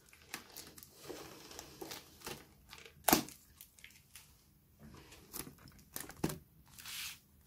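Packaging of a Pokémon trading-card box being handled, crinkling and rustling intermittently, with a sharp tap about three seconds in and another just past six seconds.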